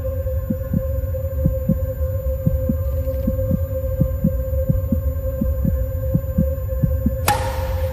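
Heartbeat sound effect, paired thumps about once a second, over a steady low drone with a held tone: film scoring that builds tension. A sudden burst of hissing noise cuts in near the end.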